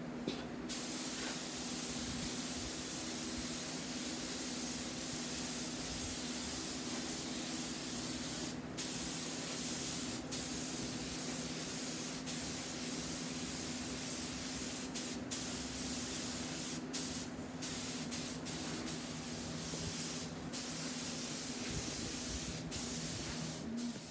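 Gravity-feed air spray gun hissing as it sprays a light coat of gold pearl paint onto a helmet, with several brief breaks in the hiss.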